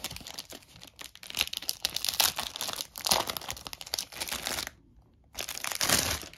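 Packaging crinkling and rustling as board-game components are unpacked and handled. It stops briefly near the end, then gives one more short burst.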